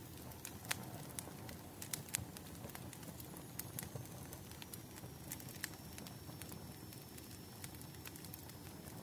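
Wood fire crackling: irregular sharp pops and snaps over a low, steady rumble of burning logs. A faint, thin high whistle comes in about three and a half seconds in.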